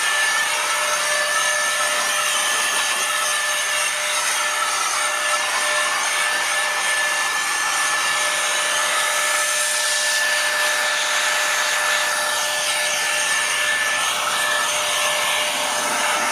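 Cordless air duster running, its small fan motor giving a steady high whine over a continuous rush of air as it blows wet leaves along.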